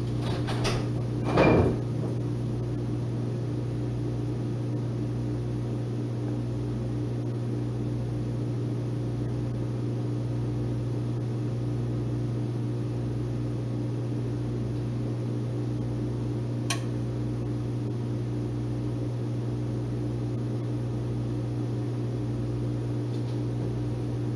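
Steady low electrical hum of a kitchen appliance, one unchanging pitch, with a knock about a second and a half in and a single sharp click about two-thirds of the way through.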